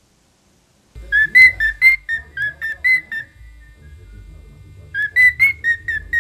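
Cockatiel whistling down a phone line: a run of about nine short, clear whistled notes, about four a second, starting about a second in, then a shorter run of about six notes near the end.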